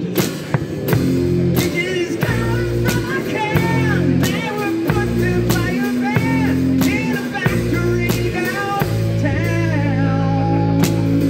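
A live rock band playing: drum kit hits over sustained low notes, with a singing voice on top.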